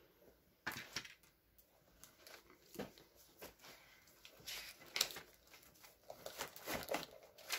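Clear plastic blister tray and small plastic parts bag handled by hand: scattered faint crinkles and clicks of thin plastic.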